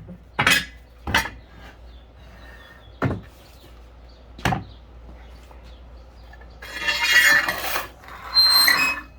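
Circular saw squealing in short bursts: four brief squeals, then two longer ones about seven and eight and a half seconds in, with high piercing tones. The blade is binding in the cut as the wood pinches it.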